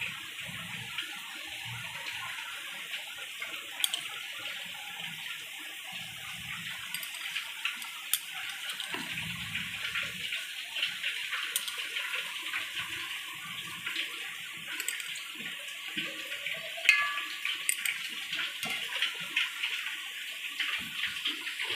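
A steady hiss with scattered small clicks of a steel spoon against a bowl and an aluminium pot as food colour is spooned over cooked rice.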